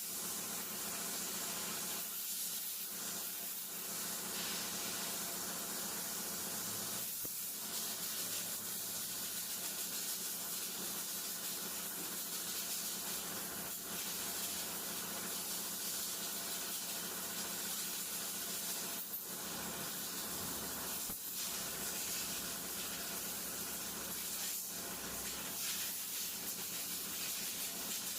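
Steady hissing noise with a low steady hum underneath, unchanging throughout.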